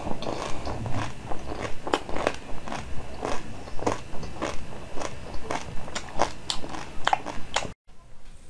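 Close-miked crunchy chewing of a frozen chocolate sweet, with sharp crunches about three times a second. The sound cuts off abruptly near the end.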